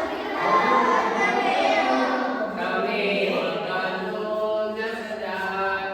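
A group of children singing or chanting together in unison, holding long notes.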